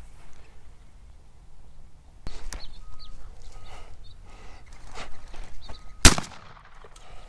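A single shotgun shot about six seconds in. Before it come irregular footsteps and rustling through dry brush.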